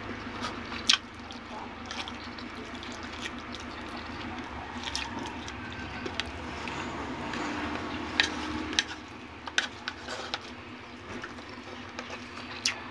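Wet, squishy eating sounds: fingers working through rice and saucy chicken adobo on a plate, with scattered sharp clicks and smacks.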